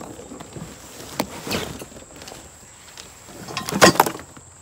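Cardboard box being lifted, tipped and shaken, with rustling and a few knocks, then the cart parts (wheels, frame tubes and small boxes of hardware) tumbling out onto the grass in a burst of thumps and cardboard rustling about four seconds in.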